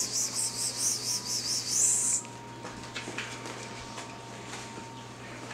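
A person making a rapid whispered "psst-psst-psst" call to the puppies, about five hisses a second, which stops abruptly about two seconds in. Faint small ticks follow.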